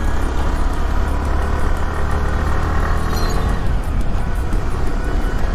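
Yamaha R15 V3's single-cylinder engine running steadily while riding, with a strong, steady low rumble.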